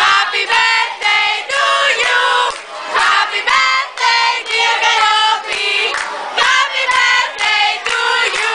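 A group of girls singing together in high voices, the syllables coming in a steady rhythm.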